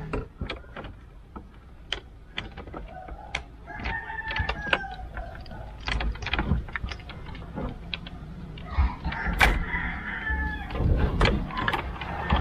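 Scattered clicks and light knocks of plastic and cable plugs as an Android head unit is handled at the dash opening and its RCA reverse-camera video cable is plugged in, with the sharpest click about nine and a half seconds in. Two long rising-and-falling calls sound in the background, near four seconds and near ten seconds.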